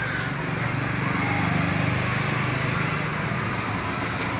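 Small motorcycle engine running as it rides along the road toward the listener, growing louder towards the middle.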